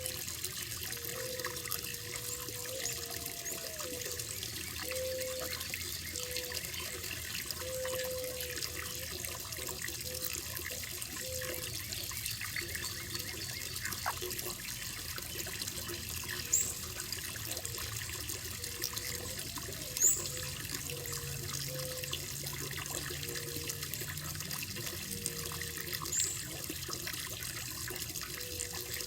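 Water running and trickling into a koi pond: a steady splash with little gurgling blips. Three short high chirps stand out in the second half.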